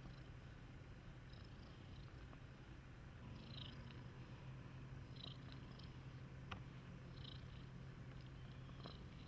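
Cat purring, a faint low steady hum, with a few faint high chirps and a single small click in the background.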